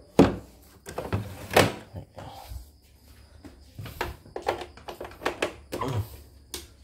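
Hands handling a plastic portable embroidery machine on a wooden table: a string of irregular knocks and thunks against its casing, the loudest two in the first couple of seconds.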